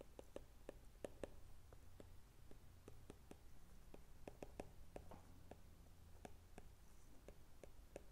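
Faint, irregular clicks and taps of a stylus writing on a tablet's glass screen, over a low steady hum.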